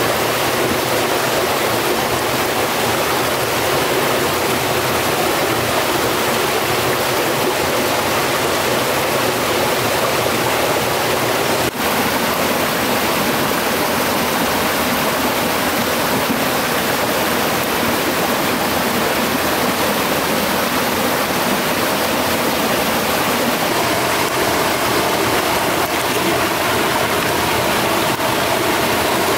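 Stream water rushing steadily, with a brief dip about twelve seconds in.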